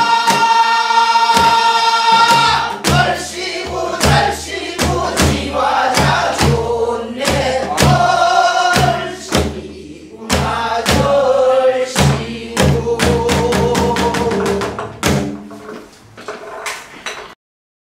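A group singing a Korean Namdo folk song (minyo) in unison, accompanied by strokes on buk barrel drums. The drum strokes come faster near the end, and singing and drumming stop suddenly about seventeen seconds in.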